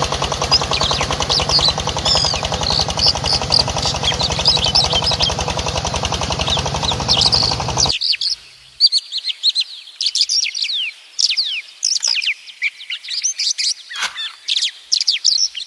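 Small birds chirping and tweeting throughout. For the first eight seconds a loud, fast mechanical rattle runs under them, then it stops abruptly.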